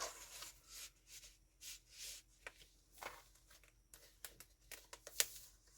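Paper pages of a handmade junk journal being turned and handled: faint soft rustles and light taps, several times.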